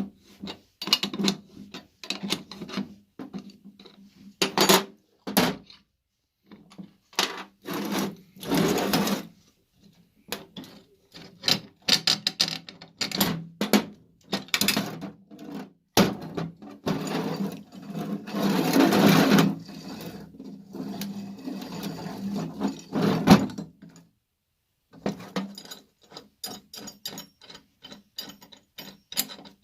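Metal winch parts and hand tools being handled during disassembly: irregular clinks and knocks, with stretches of scraping and rubbing.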